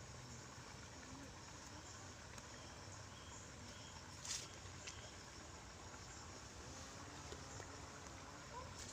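Faint, steady outdoor background by a small river, with a few short insect chirps. One brief sharp rustle or click comes about four seconds in.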